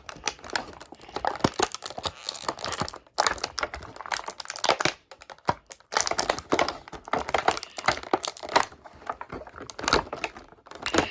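Toy packaging crinkling and crackling in irregular bursts as a figure is worked and pulled out of it.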